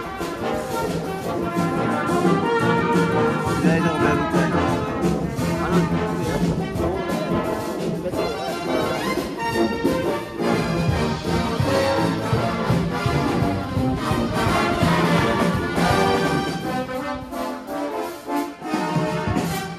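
Brass band playing a tune, several brass instruments sounding together.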